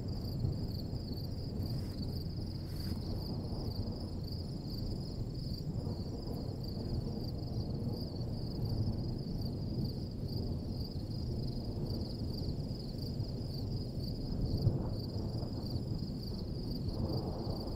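Steady high-pitched chorus of field insects, with wind noise rumbling on the microphone underneath. A stronger gust comes about three-quarters of the way through.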